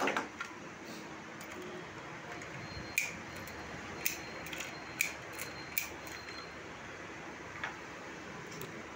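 Clicks and clacks of a Godrej Catus Touch Plus lock body and handle assembly being handled. The clicks are sharp and scattered: a couple at the start, a run between about three and six seconds in, and one more near the end, over a steady faint hiss.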